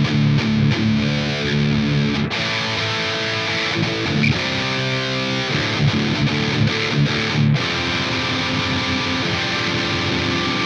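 Epiphone Explorer electric guitar played through an amp-simulator plugin with heavy crunch distortion. It opens with about two seconds of fast, evenly repeated palm-muted chugs, then moves to sustained chords and held notes, with some sliding notes in the middle.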